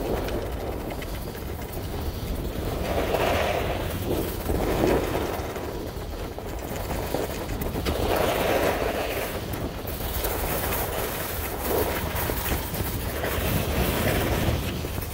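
Sliding downhill on packed snow: a scraping hiss swells with each turn, about every two to four seconds, over a steady rumble of wind on the microphone.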